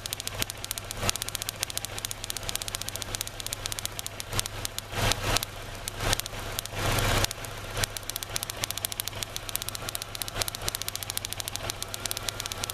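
2003 Kia Rio's four-cylinder engine idling rough, with rapid sharp snapping clicks throughout from the ignition coil pack arcing between its towers and to ground, usually a sign that worn spark plug gaps or plug wire resistance demand too much voltage. Two louder noisy stretches come about five and seven seconds in.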